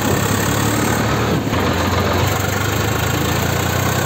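Farm tractor's diesel engine running steadily under way, heard close up from the driver's seat.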